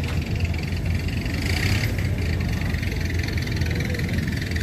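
Car engines idling with a steady low rumble.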